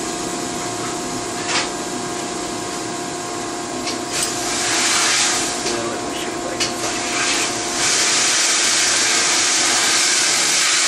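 Steady hum of running shop machinery. A hiss of air grows louder about four seconds in and holds steady from about eight seconds. A few light metallic clicks come through as the part is handled on the mill table.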